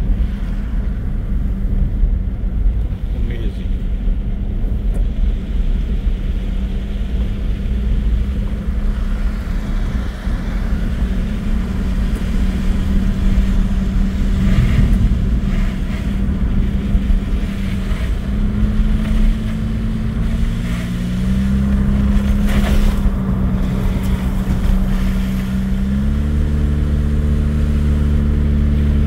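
Car engine and tyre noise on a wet road, heard from inside the cabin while driving. The engine hum is steady, then steps up in pitch a few times in the second half.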